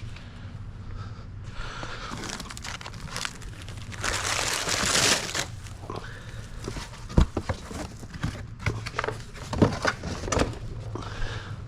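Crinkling and tearing handling noise, loudest about four to five and a half seconds in, with a few sharp knocks later on, over a steady low hum.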